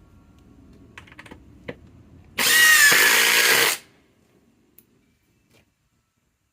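Ryobi PSBIW25 cordless impact driver hammering in one loud burst of about a second and a half, its whine shifting in pitch, preceded by a few light clicks.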